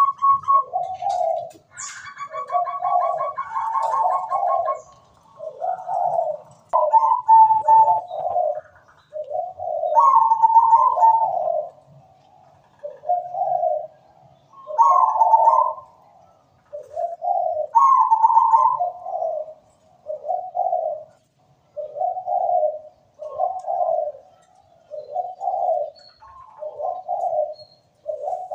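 Zebra dove (perkutut) cooing: a repeated low, rhythmic phrase about every second and a half. In the first half, higher, clearer held notes break in now and then and grow rarer toward the end.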